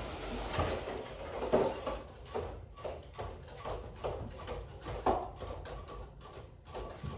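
Radio-controlled competition robot driving and manoeuvring on carpet: its parts knock and clatter irregularly, about two times a second. A faint steady whine joins in over the last couple of seconds.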